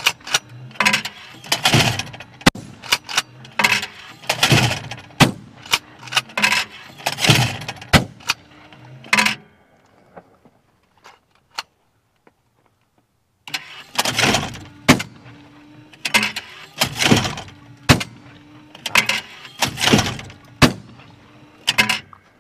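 Electric motor of a Do All Outdoors USA Clay Trap, a battery-powered automatic wobble clay thrower, running with a steady hum and repeated mechanical clatter. It stops for a few seconds about ten seconds in, then starts again.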